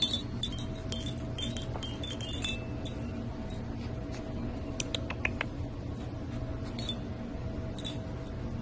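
Tinkling, chime-like notes, clustered in the first couple of seconds, then a few light clinks around the middle and near the end, over a steady low hum.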